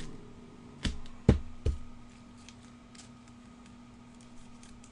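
Trading cards being handled and set down on a desk: a few sharp clicks and knocks in the first two seconds, the loudest about a second and a half in, then faint ticks, over a faint steady hum.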